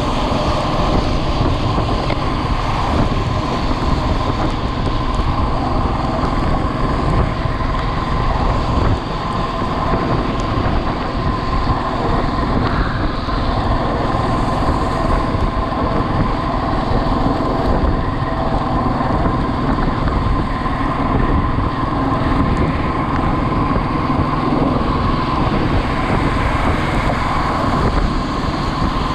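Motorcycle riding at steady speed: wind rushing over the microphone with the engine's even drone underneath.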